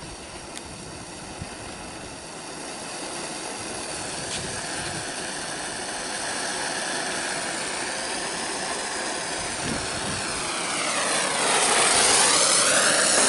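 Oxy-acetylene torch burning with a neutral flame: a steady rushing hiss that grows louder, with a sweeping, swirling whoosh in the last few seconds.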